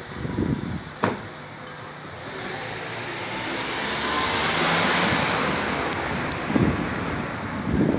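A car passing: tyre hiss swells over about three seconds and fades away. Wind gusts buffet the microphone a couple of times, and there is a single sharp click about a second in.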